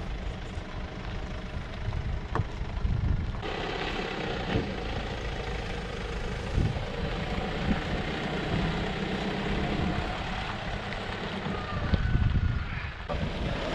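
Mercedes Sprinter-based motorhome's diesel engine running as it pulls away and drives past on a dirt road, a steady low rumble.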